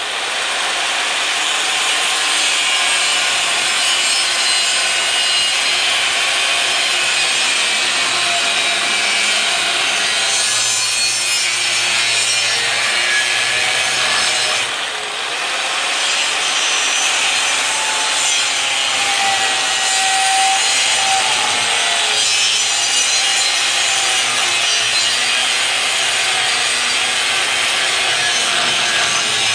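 Angle grinder with a cut-off wheel cutting through steel, a steady harsh cutting noise that dips briefly about halfway through.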